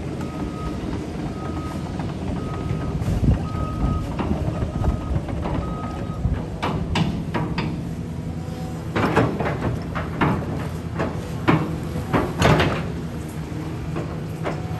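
A vehicle engine running steadily, with a short electronic beep repeating about every three-quarters of a second for the first six seconds. From about six and a half seconds in come a series of sharp knocks and clatters, loudest near the end.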